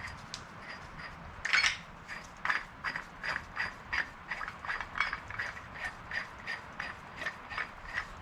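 Ratchet wrench clicking in quick, even strokes, about three a second, after a louder metallic clatter about a second and a half in. It is fitting a heavy duty hub puller to the Jeep's rear hub.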